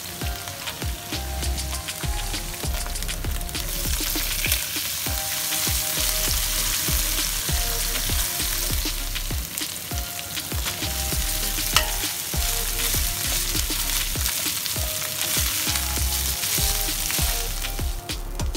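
Hot oil sizzling in a non-stick wok as fried shallots and then rice are stir-fried with a spatula. The sizzle grows louder about four seconds in, with sharp clicks of the spatula against the pan.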